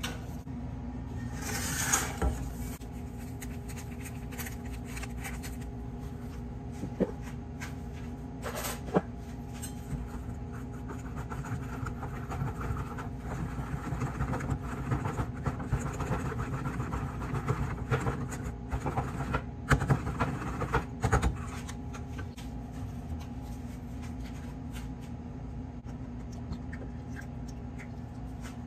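Kitchen handling sounds: a spoon stirring and tapping in a small cup, with scattered clinks and knocks of utensils against a steel bowl and a steel counter, over a steady low hum.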